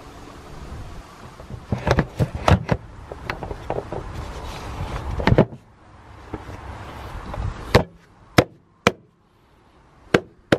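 Sharp knocks and clicks of a hard plastic air filter housing being handled and seated on its mounts. A cluster of them comes about two seconds in, then single knocks spaced about a second apart. A steady background rush drops away about halfway through.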